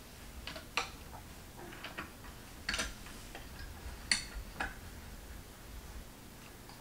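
Light, scattered clicks and taps of wooden crib parts being handled and fitted together during assembly, at uneven intervals, the sharpest about four seconds in.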